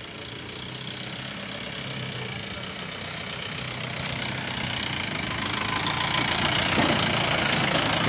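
Safari jeep engine idling steadily, growing gradually louder.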